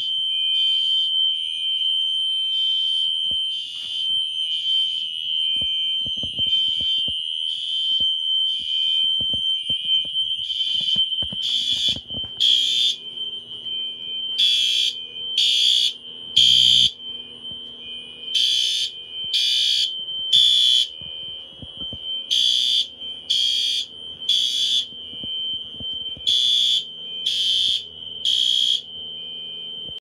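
Fire alarm horns sound in groups of three pulses, each group followed by a pause, over a steady high-pitched alarm tone. The pulses become much louder about twelve seconds in.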